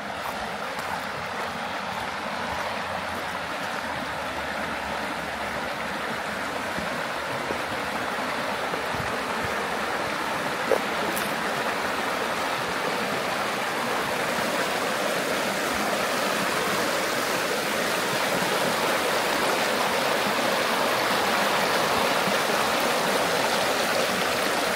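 Jemez River rushing over rocks in small rapids: a steady hiss of running water that grows gradually louder as the bank is approached.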